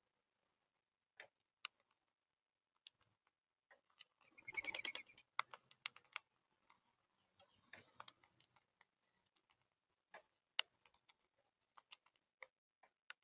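Faint scattered sharp clicks and taps, with one short harsh chattering call from a monk parakeet (Quaker parrot) about four seconds in.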